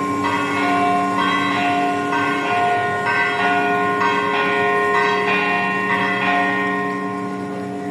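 Greek Orthodox church bells ringing: a quick rhythm of smaller bells struck two to three times a second over the steady hum of larger bells. The strikes stop about six seconds in and the ringing dies away.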